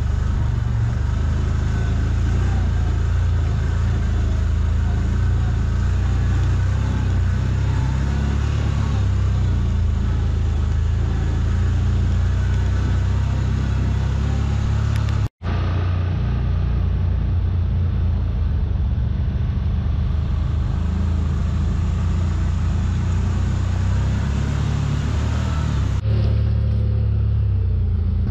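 CFMoto ZForce 950 side-by-side's V-twin engine running steadily under way on a rough trail, a constant low drone. The sound drops out for an instant about halfway through.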